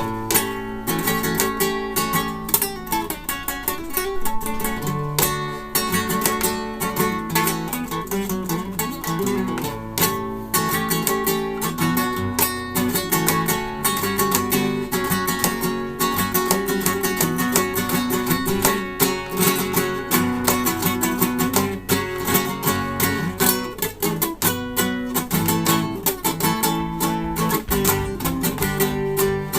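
Acoustic guitar played continuously, a quick flow of plucked notes and chords.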